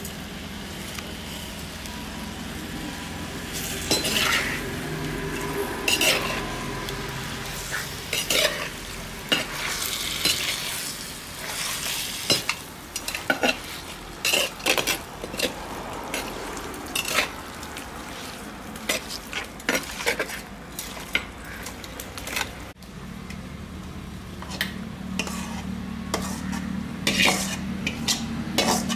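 Perforated metal ladle scraping and clinking in a clay pot as raw mutton pieces are stirred, over a steady hiss. After a cut near the end, a metal ladle scrapes fried onion-tomato masala out of an aluminium pan into a mixer-grinder jar, with more sharp scrapes.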